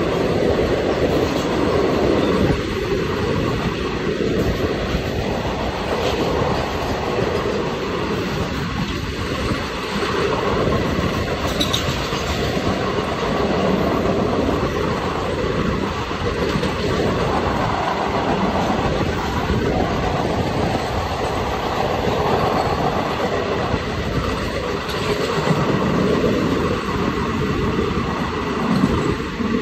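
Steady rumble and clatter of two trains running side by side: a passenger train and a goods train of covered wagons, with wheels clicking over the rail joints. It is heard from the doorway of the moving passenger coach, with a brief high wheel squeal about twelve seconds in.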